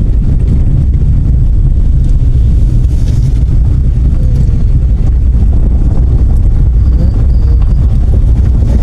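A car being driven along the road, with a loud, steady low rumble of engine, tyre and wind noise.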